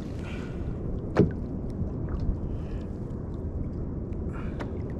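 Sea kayak on the water: a steady low rumble of water and movement around the hull, with a few sharp knocks, the loudest about a second in.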